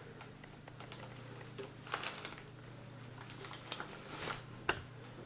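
Scattered small clicks, taps and rustles of a desktop speaker being handled and turned over, with one sharper knock about four and a half seconds in, over a low steady hum.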